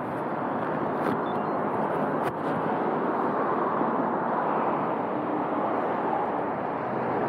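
Steady road-traffic noise of cars passing through an intersection, with the engine of a stopped car close by.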